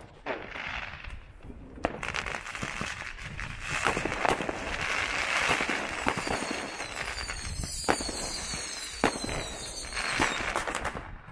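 New Year's Eve fireworks going off: a dense run of bangs and crackling, with sharper single cracks scattered through. High whistles fall in pitch through the second half.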